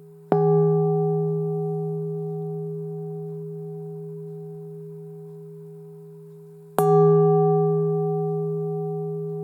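A singing bowl struck twice, about six and a half seconds apart. Each strike rings with a strong low hum and a few higher overtones that fade slowly.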